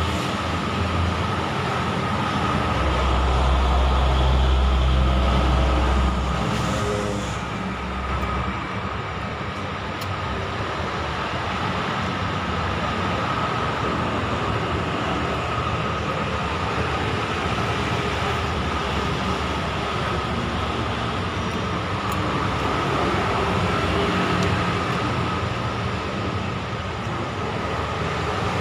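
Steady urban traffic noise with passing vehicles, a heavier low rumble swelling about three seconds in and fading by about seven, under a constant thin whine.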